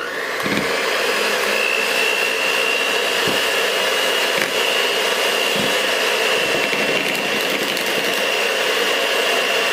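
Electric hand mixer running steadily, its beaters whipping egg whites to stiff meringue as sugar is added. A steady high whine rides on the motor noise from about a second and a half in.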